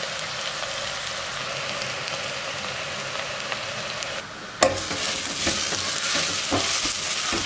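Sliced onions sizzling in hot fat in a stainless steel pot as they caramelize. A little past halfway a sharp knock is followed by louder sizzling and the strokes of a spatula stirring and scraping the pot.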